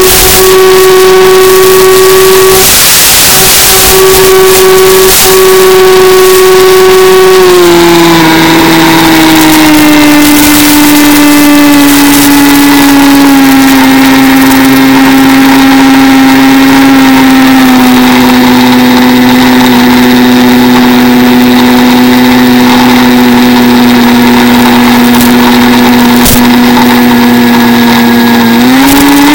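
Mini Skywalker RC plane's electric motor and propeller whining steadily in flight. The pitch drops in several steps from about a quarter of the way in as the motor slows, then climbs sharply near the end as the throttle is opened. A rush of wind noise on the microphone sounds about three seconds in.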